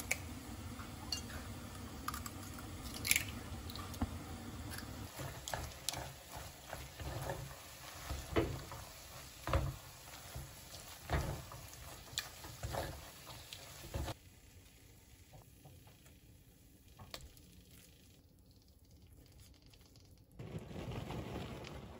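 Kitchen cooking sounds: chopsticks clicking and scraping against a pot as instant noodles are tossed, with sharp taps and knocks over a low steady hiss. After about 14 seconds it goes quieter, and a steady hiss returns near the end.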